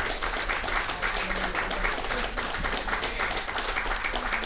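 Audience applauding: a steady patter of many hands clapping, with a few faint voices underneath.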